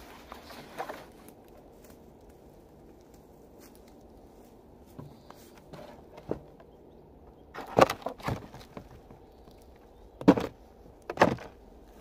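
Bricks being put into a plastic sled: four loud knocks in the second half, the first two close together. Before them, footsteps on dry forest litter.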